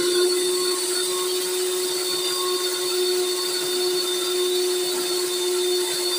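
Electric hand mixer running steadily at one speed, its twin wire beaters whipping egg whites in a bowl as powdered sugar is added: a constant motor hum with a whirring hiss.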